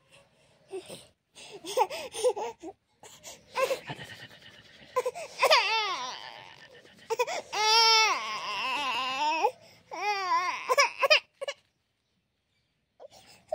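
A person crying and sobbing: short broken sobs at first, then long wavering wails, which stop a couple of seconds before the end.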